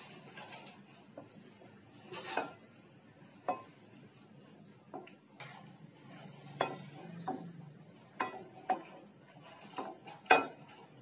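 A non-stick frying pan being handled on a steel stove top to spread cooking oil: a scatter of light, irregular knocks and clinks, the loudest near the end.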